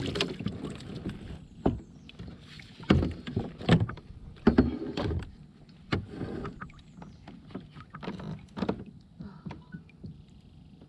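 Irregular knocks and bumps of gear being handled in a small boat, clustered in the first half and thinning out after about six seconds.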